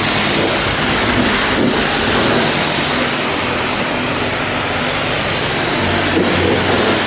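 High-pressure water jet from a self-service car-wash lance, a steady loud hiss of spray on the car's body at the rinse stage, washing off the soap.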